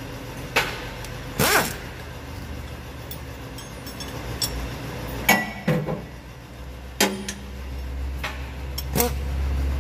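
Scattered metal clinks and knocks from tools and fittings at a tractor's PTO driveshaft and rotary tiller gearbox, several with a short ring. Under them is a low hum that grows louder near the end.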